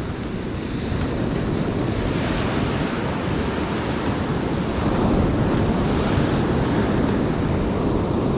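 Sea surf washing against the shore with wind buffeting the microphone: a steady, dense rushing that swells a little about a second in and again around five seconds in.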